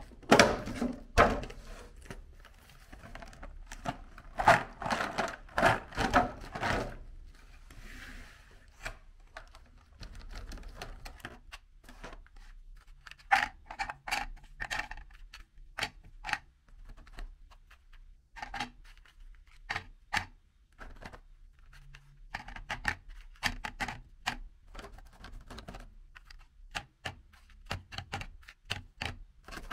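Thin clear plastic clamshell box crackling and snapping as it is opened, dense for the first several seconds. Then hard glazed biscuits click and clack as they are set down one at a time on a plastic plate and onto each other.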